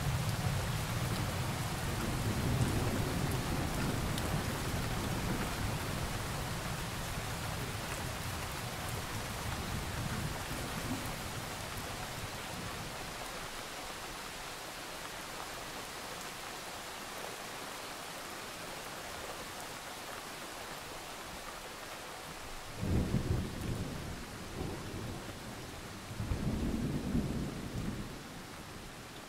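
Thunderstorm with steady rain: a loud low rumble of thunder at the start rolls away over about ten seconds, then two shorter rumbles come near the end.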